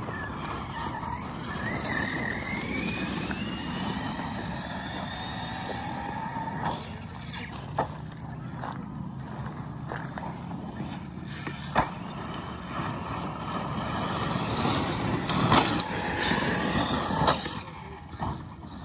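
Large electric RC cars driving hard on loose gravel: their motors whine, rising in pitch as they accelerate, over the hiss and spray of gravel under the tyres. Several sharp knocks, the loudest about twelve seconds in, as the cars land off jumps and strike the ground.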